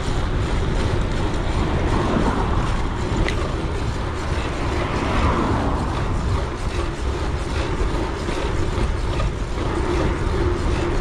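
Wind buffeting an action camera's microphone while riding a gravel bike on tarmac, mixed with tyre noise, with a low steady hum joining near the end.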